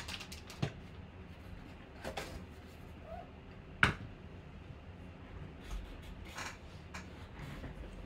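Handling sounds from foil sports-card packs: a few short rustles and clicks, with the loudest, a sharp knock about four seconds in, as the packs are set down on the table.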